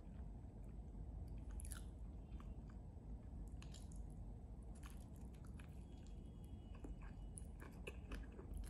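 A person biting and chewing food, with faint, irregular crunches.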